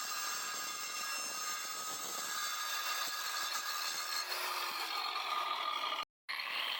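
9-inch DeWalt angle grinder with a diamond disc running and cutting, a steady high motor whine over grinding noise. The sound cuts out for a split second about six seconds in.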